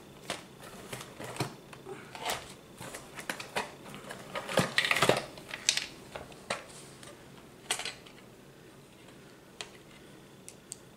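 Small parts and a hand tool being picked up and handled on a tabletop: a run of light clicks and rattles, busiest about halfway through, then only a few faint ticks.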